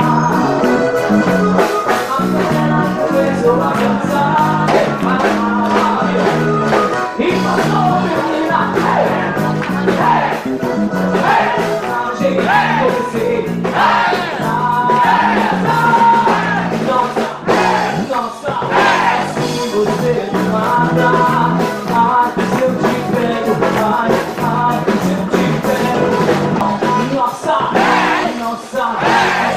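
Band music with singing over guitar and a line of changing bass notes.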